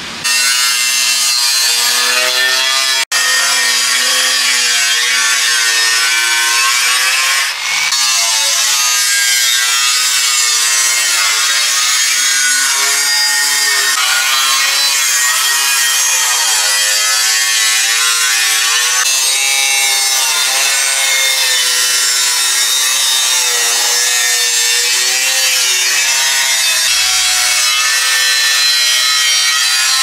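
Angle grinder with a thin cutting disc slicing through a thin sheet-metal basin: a loud, continuous grinding whine whose pitch wavers as the disc bites into the metal. It breaks off sharply about 3 seconds in and dips briefly again a few seconds later.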